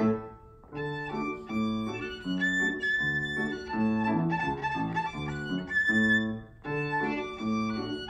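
Jazz violin and Steinway grand piano playing a duet. The piano keeps an even pulse of low notes, about two a second, under the violin's line. There is a brief break just after the start and a shorter dip about six and a half seconds in.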